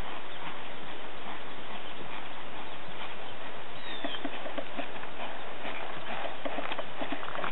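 Hoofbeats of a Thoroughbred mare walking on grass, faint irregular thuds under a steady hiss.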